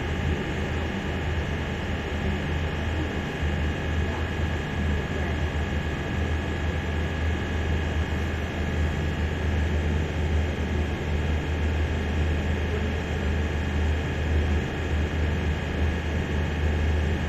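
Generator running at steady speed, its rotor and slip rings spinning under carbon brushes: a constant low hum with a few faint, steady higher tones over it.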